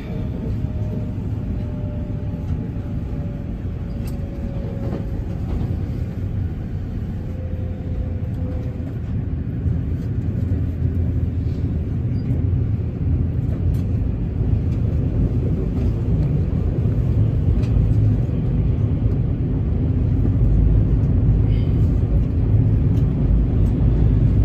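JR West train running, a steady low rumble heard from inside the carriage that grows slightly louder toward the end. A faint whine slowly falls in pitch over the first few seconds.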